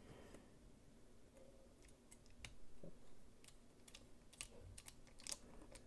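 Faint, irregular light clicks of small metal folding-knife parts being handled and fitted together by hand during reassembly, a dozen or so ticks, more of them in the second half.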